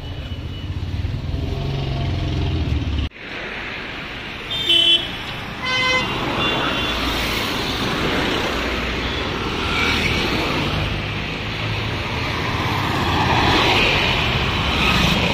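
Road traffic of cars and motor scooters passing close by, with two short vehicle horn toots about five and six seconds in. A low rumble at the start cuts off suddenly about three seconds in.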